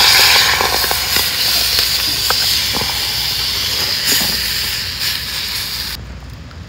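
Beef tendon stew poured into a hot cast-iron skillet over a charcoal fire, sizzling loudly with a hiss of steam that slowly eases off and cuts off suddenly about six seconds in.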